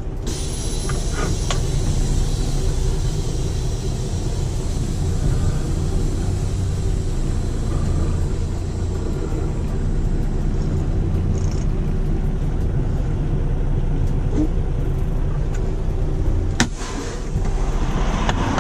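Semi-truck diesel engine running steadily, heard from inside the cab. A sharp click near the end as the cab door opens, after which the engine sounds louder.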